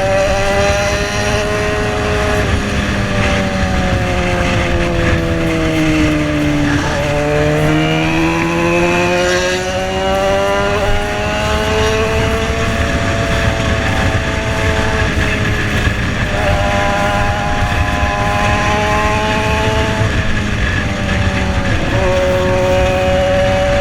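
Yamaha XJ6's inline-four engine through a custom-made exhaust, heard from on the bike with wind rush on the microphone. The engine note falls steadily for about seven seconds as the bike slows, then climbs again under throttle and levels off, with a few quick changes in pitch later on.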